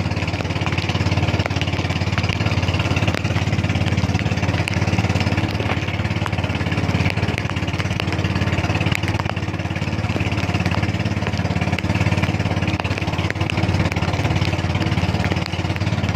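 Small engine of a motorized outrigger fishing boat running steadily while the boat is under way, over a constant hiss of wind and choppy water.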